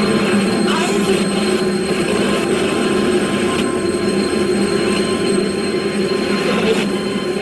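Harsh noise wall: a loud, unbroken roar of dense noise with a low drone and thin, steady high whistling tones held throughout, with no beat or rhythm.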